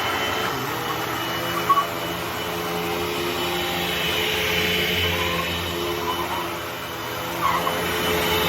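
Hoover WindTunnel T-Series bagged upright vacuum cleaner running steadily, with a few faint short squeaks that the owner suspects come from the wheels needing oil.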